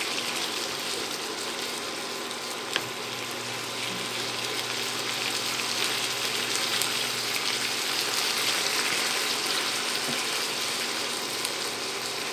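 Marinated pork belly pieces sizzling steadily in oil in a nonstick frying pan as they brown, with one sharp click of wooden chopsticks about three seconds in.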